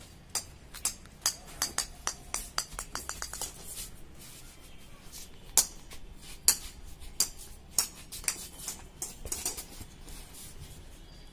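Small ball bouncing on a tiled floor: scattered sharp clicks, with a quick run of bounces coming closer together about three seconds in as the ball settles.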